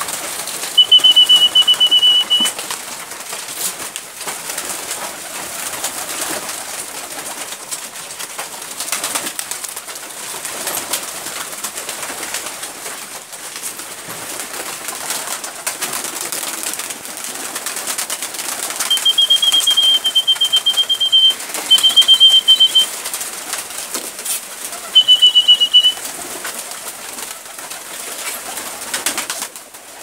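Flock of domestic pigeons cooing, with wings flapping now and then. Over it, a loud, high, evenly pulsed trill of one to two seconds comes once about a second in and three more times in the second half.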